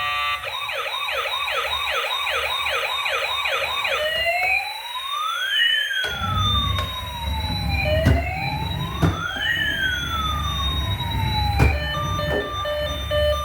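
Electronic siren of a toy emergency vehicle. It starts as a fast yelp, a quick rising sweep repeated about two or three times a second. After about four seconds it switches to a slow wail of two tones gliding up and down across each other. A few sharp knocks and a low rumble run under the second half.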